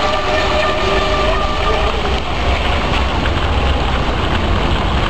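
Radio-controlled speedboat's motor whining at high revs as it runs across the pool, fading out about two seconds in as the boat moves away. Under it, a steady rushing hiss and a constant low rumble.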